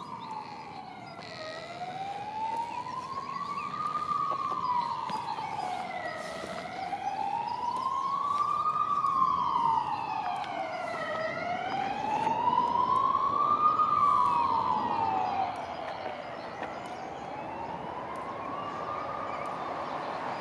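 A wailing siren, its pitch sliding slowly up and down in an even cycle about every four to five seconds. It grows louder through the first three-quarters and then drops off sharply a few seconds before the end.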